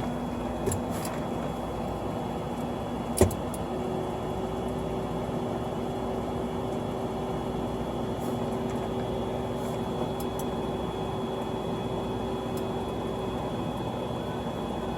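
Creality Ender 3 3D printer auto-homing: the stepper motors give a steady whine that starts about four seconds in and stops near the end, over the constant hum of the printer's fans. A single sharp click comes about three seconds in.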